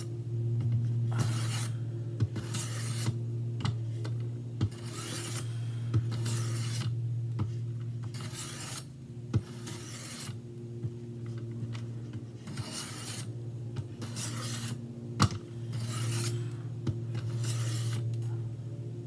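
A knife blade drawn in slow strokes along the diamond plate of a Work Sharp Benchstone sharpener, each stroke a gritty rasp, about one every second or two, with a few sharp clicks between strokes. A steady low hum runs underneath.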